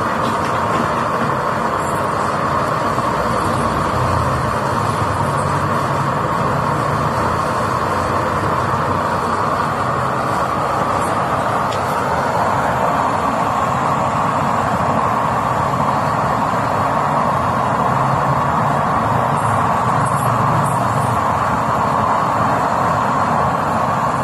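Improvised oil-burning stove running, its electric blower forcing air into the burning flame: a steady, loud rushing of air and fire.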